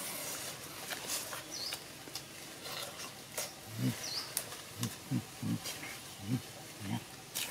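A man eating cooked pig intestines: wet smacking and clicking chewing sounds throughout, with a series of short low grunts from the second half on.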